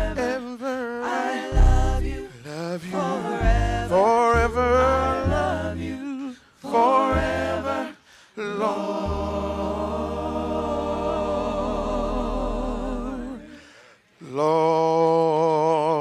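Church praise team singing a slow gospel song into microphones, with voices wavering in vibrato over low bass notes. About halfway through, they hold one long chord, break off briefly, then come back in.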